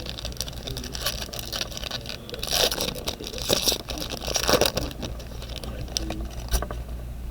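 Trading card packaging and cards being handled and opened, with irregular crackling, rustling and scraping that is busiest in the middle, over a steady low hum.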